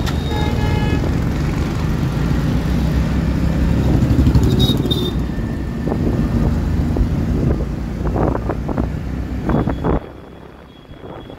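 Engine rumble and road and wind noise heard on board a moving vehicle riding through traffic, with a few short tones near the start. The noise drops off suddenly about ten seconds in.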